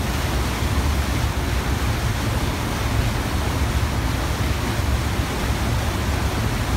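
Wind buffeting the microphone and water rushing past the hull of a moving boat: a steady rushing noise with a heavy low rumble.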